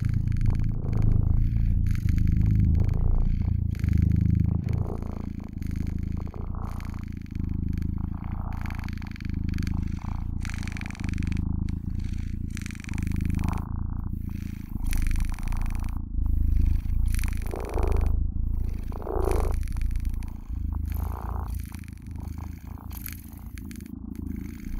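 Domestic cat purring loudly right at the microphone, a continuous low rumble that swells and eases with each breath, about once a second, while being scratched under the chin.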